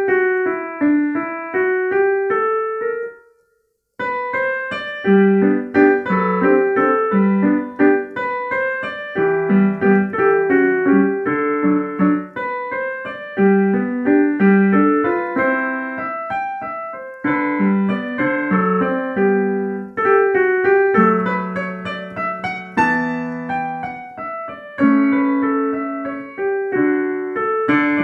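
Digital piano playing a classical solo piece, with a short break in the sound about three seconds in before the playing resumes.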